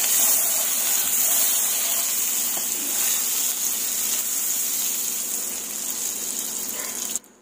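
Butter sizzling and bubbling as it melts in a hot nonstick frying pan, a steady hiss that cuts off suddenly near the end.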